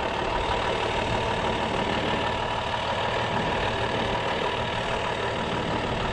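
Heavy-duty 16-ton single-axle wrecker's diesel engine running steadily.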